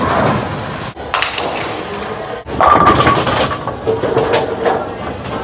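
Bowling sound effects: pins crashing and clattering, with sudden hits about a second in and again about two and a half seconds in, each trailing off into a rumbling clatter.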